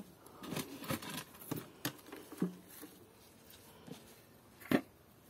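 Hands rustling and clicking against a clear plastic tub and its soil and grass while a plant is pressed into place: a run of small scratchy clicks in the first couple of seconds, then one sharper click near the end.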